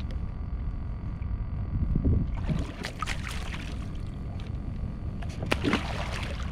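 Two bursts of splashing beside a kayak, from a catfish being swung out of the water and then let go back into it. Steady wind rumble on the microphone underneath.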